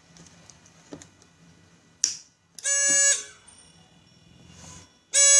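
Gas-leak alarm buzzer on an Arduino LPG detector board beeping twice, each a harsh buzzing tone about half a second long, the beeps about two and a half seconds apart. It signals that the gas sensor is detecting a high leakage level.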